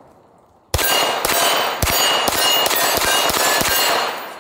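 A Staccato P 9mm 2011 pistol fired in a quick string at a Texas Star steel target, starting about three-quarters of a second in. Each hit on a plate rings out with a metallic clang. Six shots for five plates: one shot missed.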